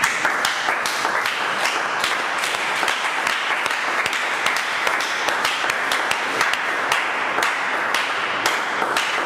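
Congregation applauding: many hands clapping together, with sharp individual claps standing out above a dense wash of clapping throughout.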